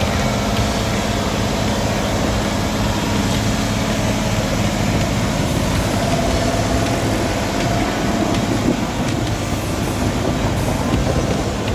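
Heavy truck engine running steadily.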